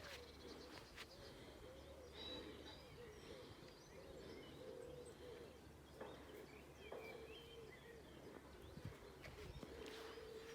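Faint birds calling: a repeated low call that rises and falls, with occasional short high chirps.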